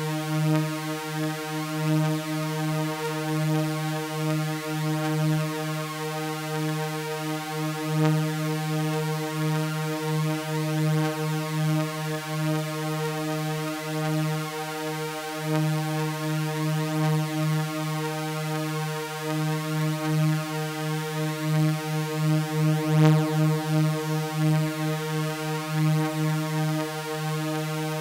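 Synthesizer drone of layered sawtooth waves: a low, buzzing, held tone with many bright overtones that does not change in pitch, only wavering slightly in level.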